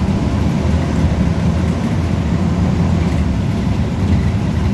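Volvo B340M bus engine running, a steady low drone with road rumble.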